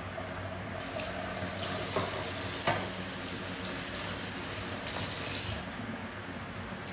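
Water running from a kitchen tap into a sink for about five seconds, starting about a second in, with two light knocks partway through.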